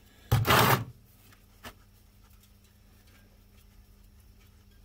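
A short noisy rustle, then faint small clicks and near-quiet as a gloved hand unscrews an ATV engine's oil drain plug with the fingers, just before the oil comes out.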